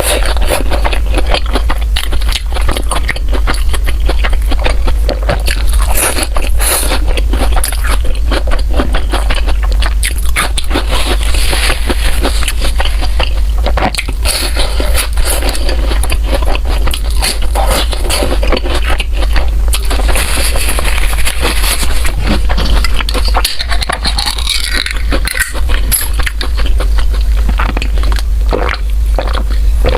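Close-miked eating sounds: food crunched, bitten and chewed in quick, irregular crackles, over a steady low hum.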